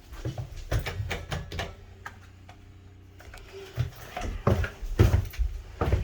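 A series of irregular knocks and clicks from handling, sparse at first and denser and louder in the second half, over a faint steady low hum.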